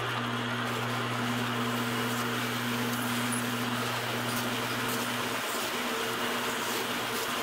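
Vertical bandsaw running with a steady hum while a copper radiator core is fed into the blade to cut it shorter, the thin copper fins meeting the blade in the second half.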